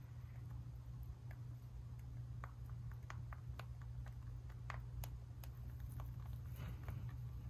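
Young rabbit chewing and nibbling dry feed pellets from a hand: small, sharp, crunchy clicks at irregular intervals, starting about a second in, over a steady low hum.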